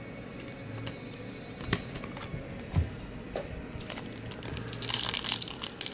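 Foil trading-card pack wrapper being handled and ripped open: a few light clicks and taps at first, then dense crinkling from about four seconds in.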